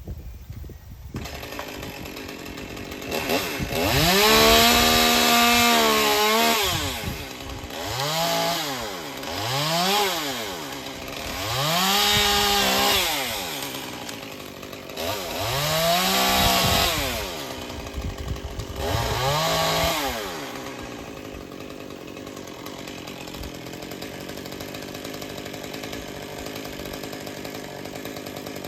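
Chainsaw revving up and back down five times, holding at full speed for a second or two on the longer ones as it cuts pine branches. After about 21 seconds it settles to a steady, quieter running.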